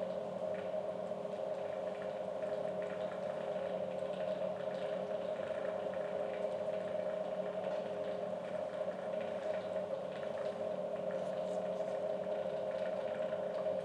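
Magnetic stirrer running under a styrofoam-cup calorimeter, spinning its stir bar in the water: a steady hum with a faint watery swirl and small ticks.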